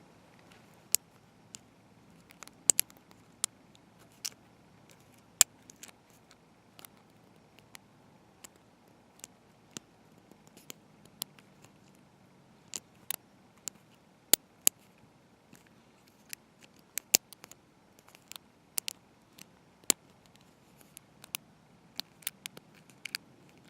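Small, sharp metallic clicks at an irregular pace, roughly one or two a second, from a pick working the pin tumblers of a Wilka padlock's Euro cylinder held under heavy tension by a pry-bar tension tool, as the standard pins set.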